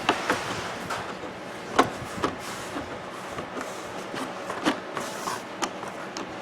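Irregular light clicks and knocks of a wall clock's case and glass being handled and fitted back together, the sharpest about two seconds in and again just under five seconds in, over a steady hiss.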